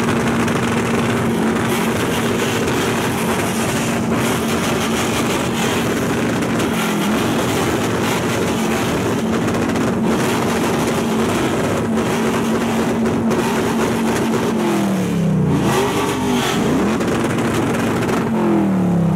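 Car engine held at high revs with a steady, unchanging exhaust note for about fifteen seconds, then the revs drop and climb back up twice near the end.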